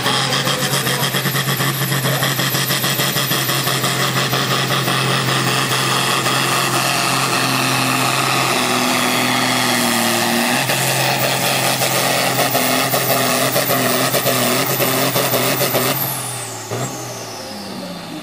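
Diesel engine of a New Holland sport-class pulling tractor running flat out under full load while it drags the weight sled. Near the end the engine drops off and a high whine falls away as the pull ends.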